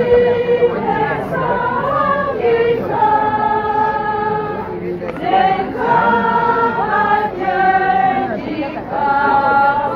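Choir singing a slow hymn, with long held notes that move in a stepwise melody.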